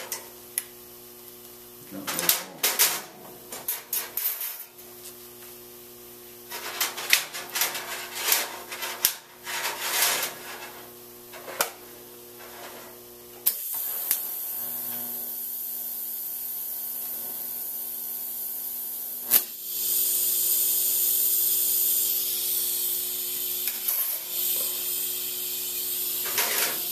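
TIG welding machine humming steadily, with irregular short clatters of handling in the first half; about halfway the TIG arc strikes suddenly and runs as a steady hiss that gets louder about six seconds later.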